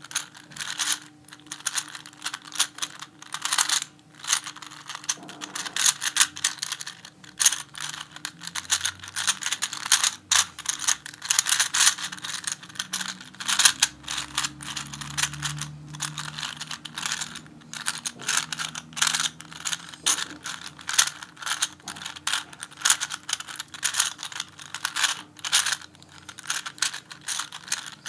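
A loose Rubik's cube being turned rapidly by hand, its plastic layers clicking and clacking in quick irregular runs as it is solved.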